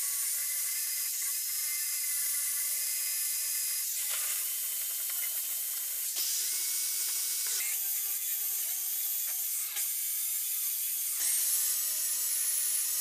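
Electric drill spinning a small wire brush attachment against the steel screw thread and T-handle of a bench vice, stripping rust back to bare metal. A high hiss from the bristles sits over the drill motor's steady whine, which changes pitch suddenly at several points.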